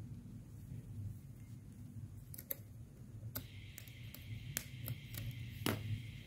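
Faint, scattered clicks of circular knitting needle tips tapping together as stitches are purled together, more of them in the second half, over a low room hum.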